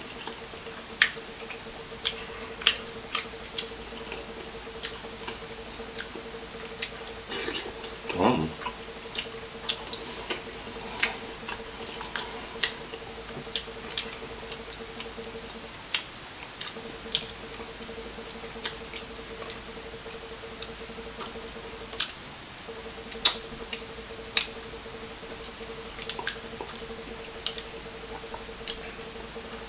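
Close-miked eating of a seafood boil: scattered sharp wet clicks and smacks, a little more than one a second, over a steady low hum.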